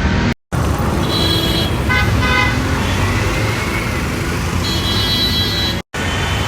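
Road traffic: a steady engine and road rumble with car horns tooting several times, including a quick run of short beeps. The sound cuts out briefly twice.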